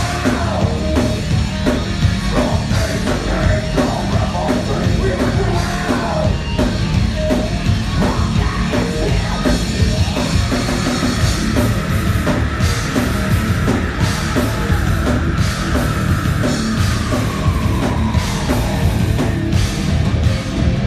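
Live heavy rock band playing loud: distorted guitars, bass and pounding drums with shouted vocals, and a long held high note through the middle.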